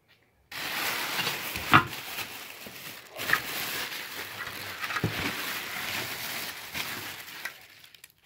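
Thin plastic bag rustling and crinkling as a hand rummages through it, starting about half a second in and dying away near the end, with a few sharper knocks and crackles about two, three and five seconds in.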